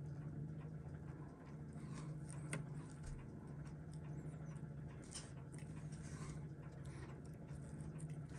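Faint, scattered small clicks of steel tweezers touching a watch movement held in a movement holder, over a steady low hum.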